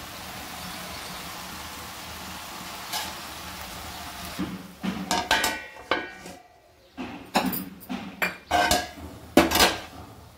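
A metal spoon or spatula clattering and scraping against a cooking pan in an irregular run of knocks and clinks, starting about halfway through. Before that there is only a steady low background hum with a single click.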